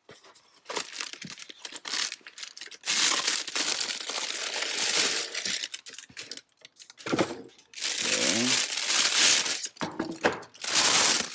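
Cardboard box flap and box being handled with small clicks, then a clear plastic bag crinkling loudly in long bouts as a plastic generator inlet box is pulled out of it and unwrapped.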